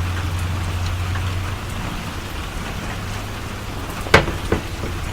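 Steady rain falling, with a low hum that fades out about a second and a half in, and two sharp clicks about four seconds in.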